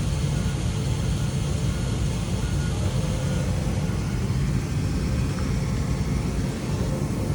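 Steady low rumble of heavy machinery running, with a faint steady tone above it.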